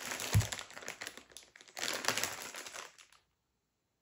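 Clear plastic wrapping around a wax melt loaf crinkling as it is handled and opened, in two stretches of rustling with a dull knock about half a second in. The crinkling stops about three seconds in.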